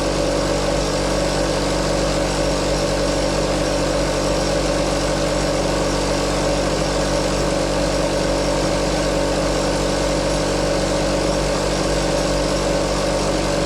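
Air compressor running steadily, its motor and pump giving an even hum. It is pumping air, but no air is reaching the pipe, so the compressor is not building pressure.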